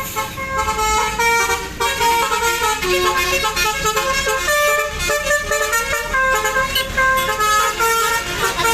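Basuri V3 telolet horn on a tour bus playing a quick melody, its notes stepping up and down several times a second with several tones sounding together.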